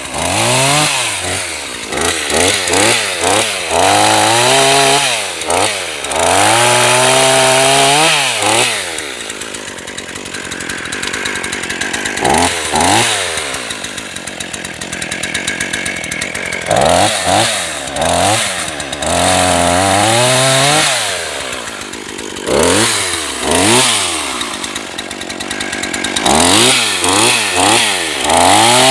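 NEO-TEC NH 841 gasoline chainsaw revving up and down again and again in short throttle bursts, dropping to lower, rougher running between bursts.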